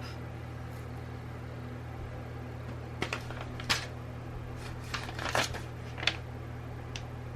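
Scattered clicks of typing on a keyboard, about half a dozen irregular taps in the middle stretch, over a steady low hum.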